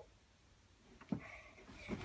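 Mostly quiet room; about a second in, a soft thump, then faint rustling.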